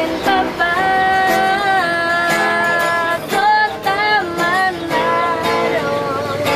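A woman singing a melody while strumming an acoustic guitar, holding several long notes.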